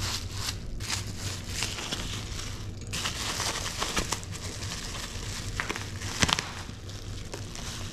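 Protective packing material being crinkled and crumpled as it is handled and pulled off a new BMX bike, with scattered crackles and one sharper snap a little after six seconds in.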